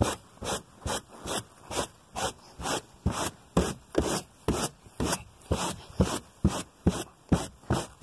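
Soft-to-medium bristle brush scrubbing car carpet in quick back-and-forth strokes, about two a second, loosening embedded dirt instead of vacuuming.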